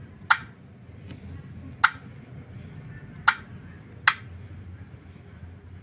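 Key taps on a tablet's on-screen keyboard while typing: four short, sharp clicks, a second or so apart and irregular, over a low steady hum.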